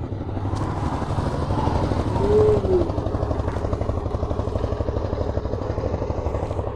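Motorcycle engine running at road speed, heard from the rider's own bike, as a fast even pulsing. About two seconds in, a short horn toot that rises and falls in pitch is the loudest sound.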